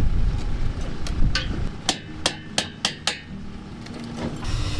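A hammer knocking on steel formwork fittings: about six sharp metallic blows in quick succession over about two seconds, coming faster toward the end.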